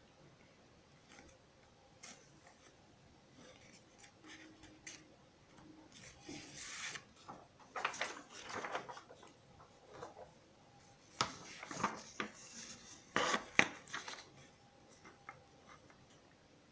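A pencil scratching and rubbing on paper in several short spells of writing or marking, strongest in the middle and second half.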